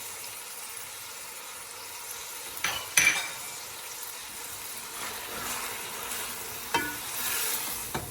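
Onions with garlic and ginger paste sizzling in ghee in a pan, while a utensil stirs and knocks against the pan a few times; the loudest knock comes about three seconds in.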